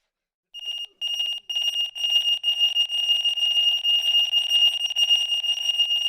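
Electronic alarm sounding: a high-pitched, rapidly pulsing tone. It starts with a few short bursts about half a second in, then rings on steadily.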